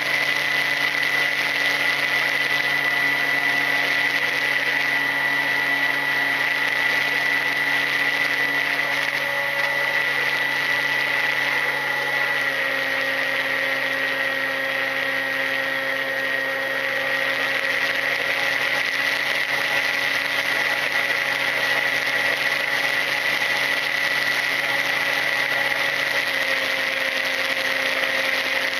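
Volantex Ranger EX FPV plane's electric motor and propeller running steadily in flight, heard from the onboard camera as a droning whine over air rush. The motor note steps down slightly about twelve seconds in.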